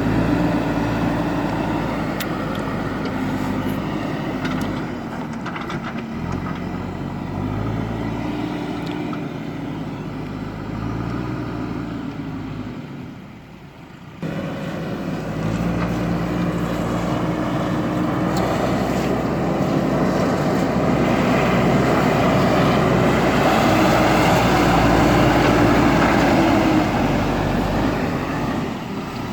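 Diesel engine of a JCB backhoe loader working, its pitch rising and falling as it revs under load. The sound drops away briefly just before the middle, then comes back louder and noisier.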